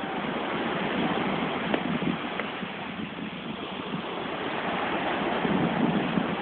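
Small sea waves washing onto a sandy beach: a steady rushing hiss.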